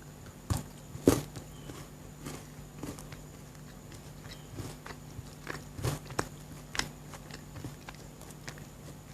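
Close-miked chewing and biting of chocolate, with scattered sharp crunches; the loudest come about a second in and again around six to seven seconds.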